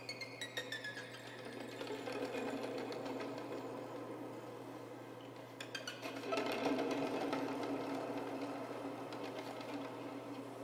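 Background music with a fast, even ticking beat. A falling swept tone sounds at the start and again about halfway through, after which the music grows fuller.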